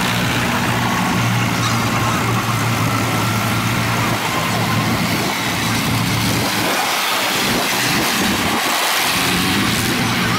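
Tractor engines running steadily as tractors drive past one after another, among them a vintage grey Ferguson.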